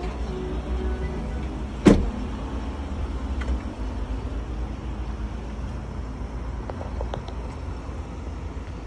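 Ford Transit 2.0 TDCi diesel engine idling, a steady low rumble, with a single sharp knock about two seconds in.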